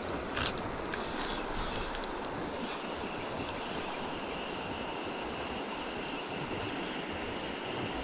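Steady rush of river water running over a shallow riffle, with a sharp click about half a second in. A faint, steady high tone joins a few seconds in.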